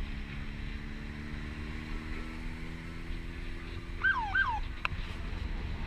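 Motorcycle running with wind rumble on the microphone, its engine note dropping slowly as it eases off. About four seconds in come two short falling chirps, followed by a sharp click.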